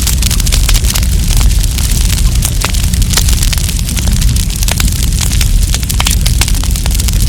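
Wood campfire crackling, with many sharp pops and snaps, several a second, over a steady low rumble.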